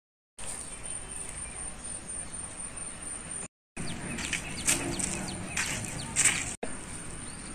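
Outdoor ambience: a steady high insect drone with a few short bird chirps, and some light scuffs in the middle. It is broken twice by brief dead-silent gaps.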